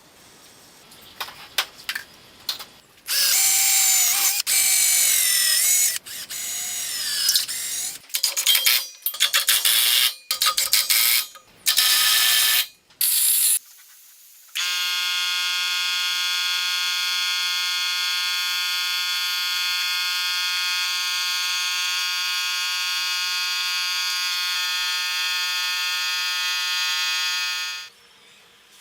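Power tools at work: clicks and loud stop-start bursts of a tool motor with wavering pitch, then a long steady high-pitched whine that cuts off suddenly near the end.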